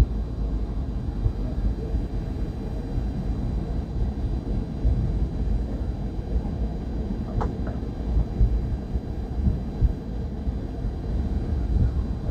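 A car driving, heard from inside the cabin: a steady low rumble of engine and tyres on the road. There is one brief click about seven seconds in.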